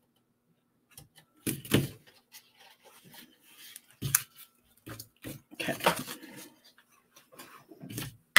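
Small craft scissors snipping cardstock, with the sheet rustling and tools knocking on the work mat: a string of short, separate clicks and rustles.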